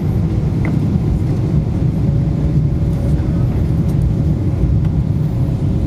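Steady low rumble of cabin noise inside a Boeing 777-300ER on short final approach: engine and airflow noise heard from a window seat over the wing. A faint steady whine runs under it from about two seconds in.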